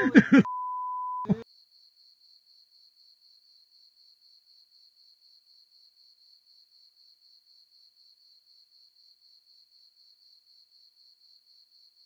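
A censor bleep: a single steady beep about a second long, starting half a second in, right after a voice is cut off. After it comes near silence, with only a faint high whine pulsing evenly.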